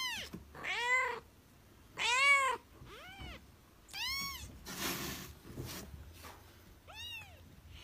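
A young kitten mewing over and over, about six short high-pitched cries that each rise and then fall in pitch.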